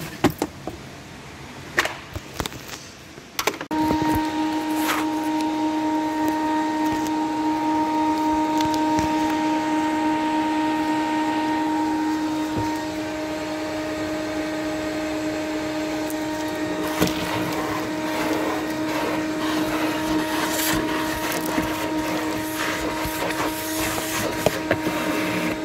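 A few clicks and knocks, then about four seconds in a vacuum cleaner starts and runs with a steady whine, sucking grit and debris off a car's floor carpet. Scattered crackles of debris going up the nozzle come in the second half.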